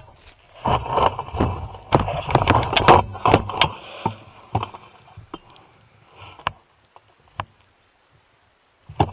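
Hurried footsteps through snow with clothing and gear rustling, busiest and loudest for the first few seconds, then settling into quiet with a few sharp clicks.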